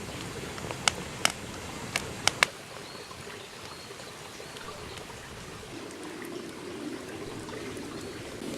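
Wood fire crackling and hissing, with five sharp pops in the first two and a half seconds, then a steadier, softer crackle.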